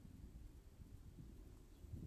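Near silence with a faint low rumble.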